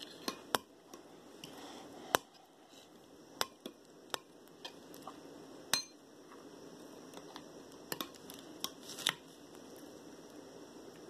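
Metal spoon stirring thick glitter slime in a glass bowl, knocking against the glass in sharp, irregular clinks.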